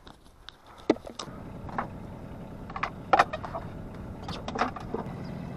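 A sailing yacht's engine running steadily at a low pitch, coming in about a second in, with a number of sharp clicks and knocks over it, the loudest about three seconds in.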